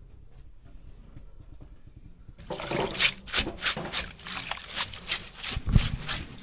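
Water splashing and sloshing in quick, irregular strokes, starting suddenly about two and a half seconds in. Before that there are a few faint high chirps.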